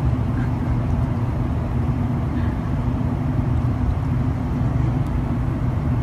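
Steady low rumble of a running vehicle engine, even and unbroken, with a faint steady hum riding on it.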